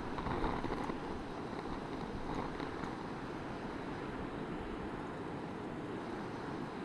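Sea surf breaking on the rocks below, a steady rushing wash with slight swells, mixed with wind buffeting the microphone.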